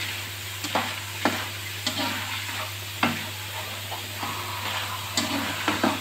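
Strands of spiced dough deep-frying in hot ghee in a karahi, a steady sizzle, while a spoon stirs them, scraping and knocking against the pan about once a second.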